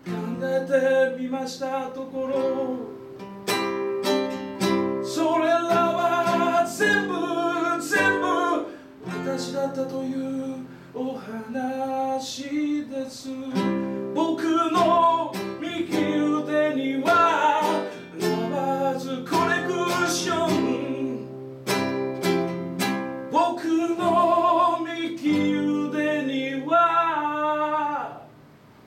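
A man singing live while strumming and picking an acoustic guitar, in phrases with short breaks between them. The music drops away just before the end.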